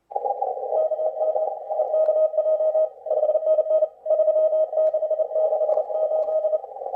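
Morse code (CW) on an amateur radio receiver: a keyed tone of one steady pitch, sending dots and dashes over a narrow band of receiver hiss. The hiss and tone break off briefly about three seconds in and again about four seconds in.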